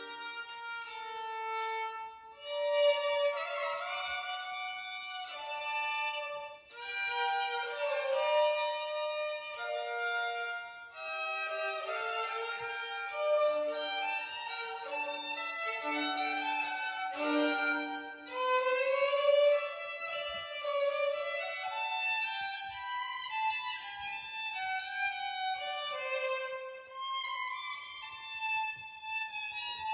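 Violin playing a continuous melody of bowed notes in the instrument's middle and upper range, with a few slides between pitches about two-thirds of the way through.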